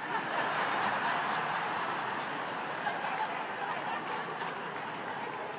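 A large audience laughing together. The laughter breaks out at once, then slowly dies down.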